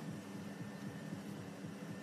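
Faint steady background hum with a thin high whine and light hiss; no knocks or clinks.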